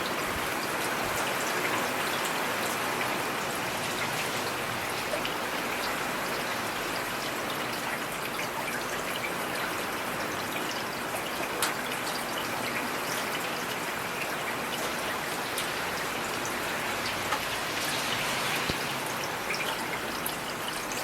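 Steady rainfall, an even hiss of rain with individual drops clicking sharply here and there.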